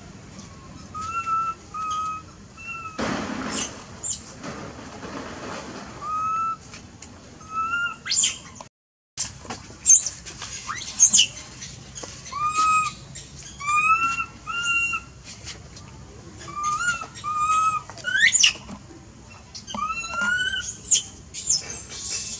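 Many short, high, chirping calls, repeated every second or so with a few quick rising squeaks among them. A brief dropout comes about nine seconds in.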